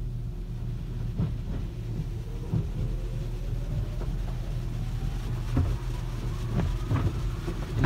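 Car wash tunnel machinery heard from inside the car's cabin: a steady low rumble with scattered knocks, and a faint whine that rises slowly in pitch through the middle.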